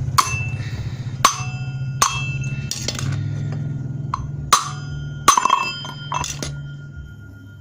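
A small grass-cutter engine running with a steady low hum that fades near the end. Over it come about ten sharp, irregular metal clinks and knocks that ring briefly, like metal parts or tools striking.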